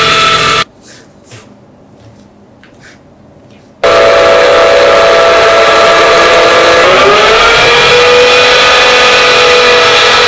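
Wood lathe spinning a turned wooden handle, running with a steady whine and hiss while sandpaper is held against the wood. It drops abruptly to a quiet lull with a few faint ticks for about three seconds, then comes back at full level as a wire is pressed into the spinning wood to friction-burn lines, with a whistling tone that rises in pitch about seven seconds in.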